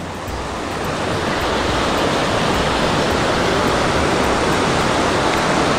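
Rocky stream rushing through small rapids over boulders into a pool: a steady, loud rush of water.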